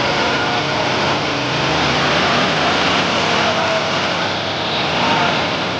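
Steady factory-floor din with a motorcycle engine running.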